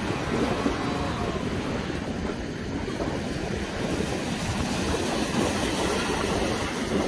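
Cape fur seal colony: a steady din of many seals and pups calling at once, mixed with surf breaking on the rocks.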